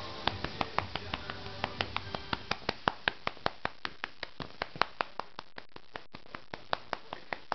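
A hand patting a cat's rump in quick, even slaps, about five a second.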